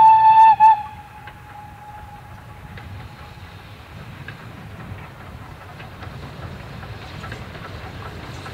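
BR Standard Class 4 2-6-0 steam locomotive's whistle sounding one long, steady note that stops about a second in. Then the quieter low rumble of the approaching train, growing slowly louder.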